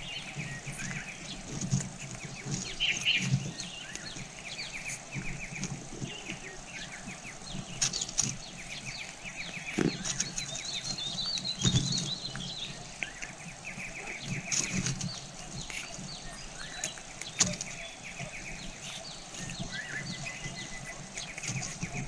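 Rustling and soft fluttering at a nest as a spotted dove feeds its downy squab. Rapid high ticking trills come in short runs throughout, with a brief twittering call about halfway through.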